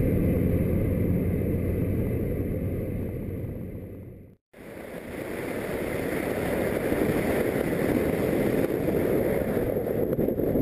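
Chevy Cruze diesel's 2-litre single-turbo engine droning with road noise while driving. It fades out to a moment of silence about four seconds in, then comes back as a steady rush of wind and road noise from outside the car.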